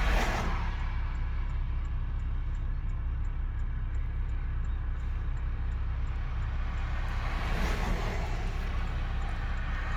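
Freight train rolling past: a steady low rumble from the wheels on the rails, with a swell of rushing noise near the start and another around three quarters of the way through.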